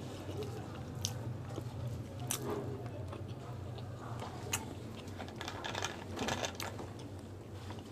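Close-miked eating sounds: a man chewing chicken biryani by hand, with soft clicks and mouth sounds over a steady low hum. About six seconds in, a quick cluster of crackles comes as the plastic 7UP bottle is grabbed by its cap.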